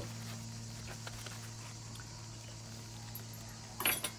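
A steady low hum with a few faint clicks. Near the end come a couple of short crackles as a baguette sandwich held in a paper napkin is handled and bitten into.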